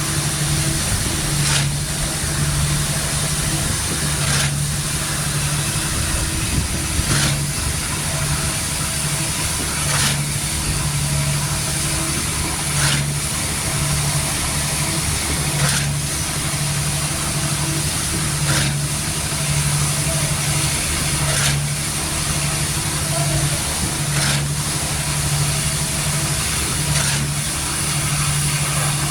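Diesel concrete pump truck running steadily, with a short knock about every three seconds as the pump changes stroke.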